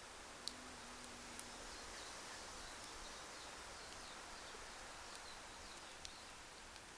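Wood fire crackling quietly, with a few sharp pops over a steady outdoor hiss, and faint, short, high chirps falling in pitch.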